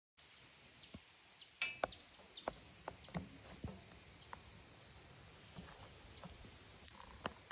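Woodland ambience: a steady high insect drone with short, high, falling chirps about twice a second, and scattered crisp clicks and rustles.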